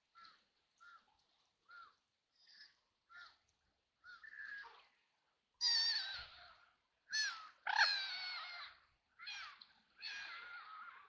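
Ducks quacking: a run of short, soft quacks about one every second, then from about halfway through louder, harsher, drawn-out quacks.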